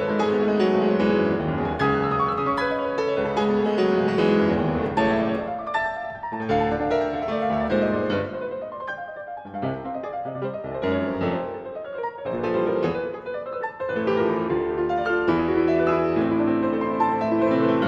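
Solo piano piece played on a Steinway & Sons grand piano, a dense stream of many notes across the keyboard. It turns softer in the middle and grows fuller and louder again from about two-thirds of the way in.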